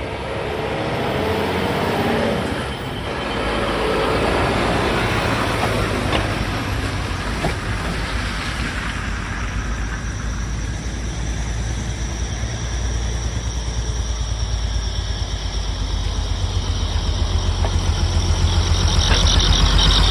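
Heavy truck's diesel engine running, with a deep pulsing rumble that grows louder near the end.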